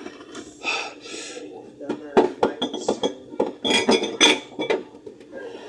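Drink bottles and cans clinking and knocking together as they are set into a fridge, several quick clinks in a row from about two seconds in.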